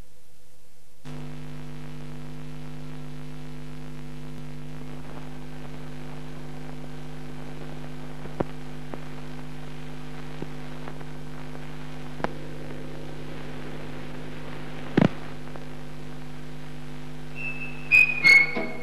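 Steady electrical mains hum on an old film soundtrack, starting about a second in, with a few faint clicks. Music begins just before the end.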